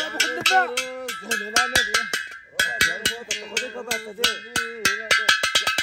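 A song with a sung melody over fast, clanking, bell-like percussion, the strikes coming quicker near the end.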